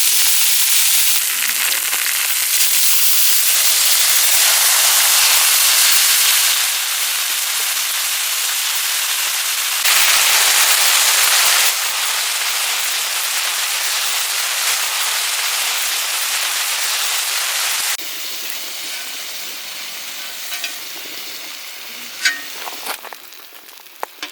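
Food sizzling and spattering in a hot pan, its level jumping at several sudden cuts. In the last few seconds it is quieter, with a few sharp pops.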